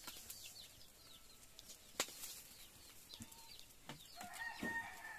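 Wood fire crackling under a grill of fish, with a few sharp pops, the loudest about two seconds in. Birds chirp throughout, and a longer bird call sounds about a second before the end.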